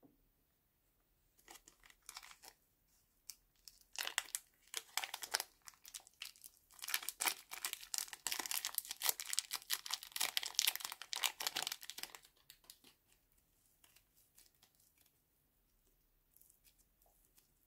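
A plastic bag of orange slime crinkling and rustling as it is handled and squeezed. The crackle builds in the first seconds, is densest in the middle, and dies away to faint handling noise.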